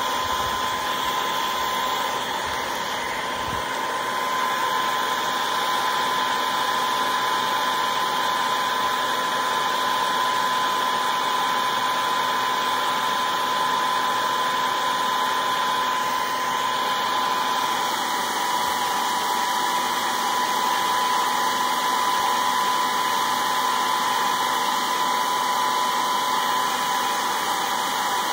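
Handheld hair dryer running steadily on hot air: a steady rush of air with a high motor whine held at one pitch.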